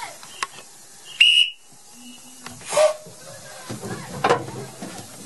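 Narrow-gauge steam locomotive's whistle giving one short, high-pitched blast about a second in, followed by a brief burst of hiss a little after.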